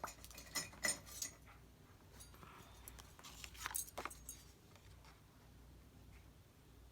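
Faint, scattered light clicks and taps of small craft supplies being handled on a table, with a few louder ticks about a second in and again near four seconds.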